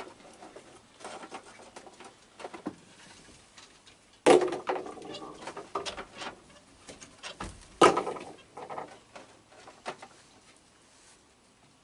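Hard cookies tossed onto wooden deck boards, landing with a sudden clatter twice, about four seconds in and again near eight seconds. Faint ticks and rustles of raccoons feeding come in between.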